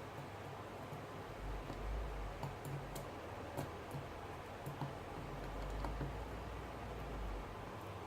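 Faint, irregular small clicks and taps over a steady low hiss, with a low rumble of handling at times: hands and small tools working on a Samsung Galaxy S7 during a display repair.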